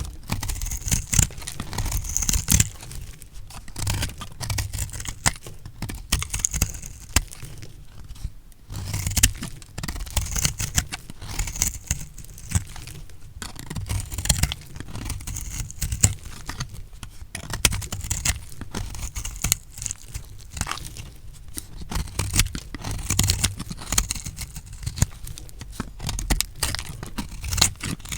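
Recycled soap being cut, giving a run of crisp crunching and scraping strokes, some with dull low knocks.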